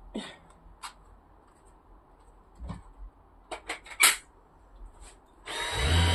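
Scattered handling knocks and clicks, then a Dyson cordless stick vacuum switching on about five and a half seconds in and running loud and steady.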